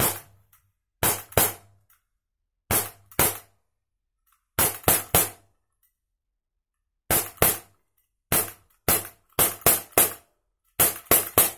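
ISSC M22 4.5 mm CO2 blowback BB pistol fired rapidly through a full magazine: about eighteen sharp shots in quick pairs and runs, each with the snap of the slide cycling. The blowback is getting weaker as the CO2 runs down on the fourth magazine, though the slide still locks back on the last round.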